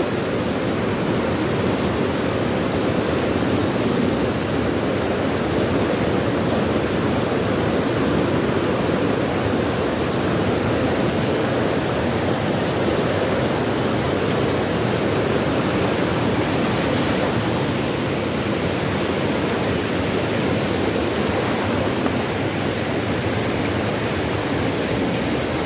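Water cascading over rocks right at the microphone: a loud, steady rushing that does not change.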